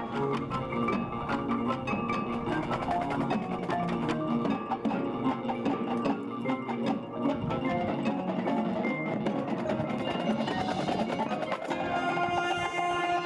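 Marching band music: the brass cuts off and the percussion carries a busy passage of mallet instruments and wood block, with the full band's sustained chord coming back in near the end.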